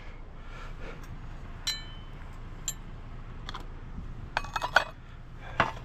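Dishes clinking as they are handled and sorted: a few separate sharp clinks with short ringing, then a quick rattle of several clinks together about four and a half seconds in.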